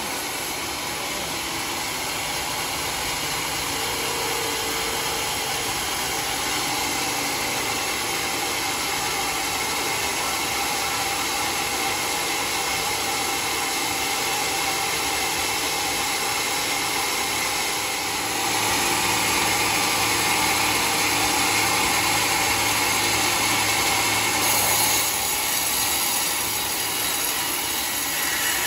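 Homemade band sawmill running and cutting along a log, a steady noisy whine of blade and motor. It grows louder about two-thirds of the way in, with a low hum underneath, then eases a few seconds before the end.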